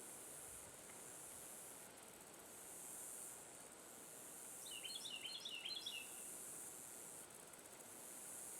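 Faint outdoor ambience: a high insect drone that swells and fades every few seconds, with a short run of quick bird chirps about five seconds in.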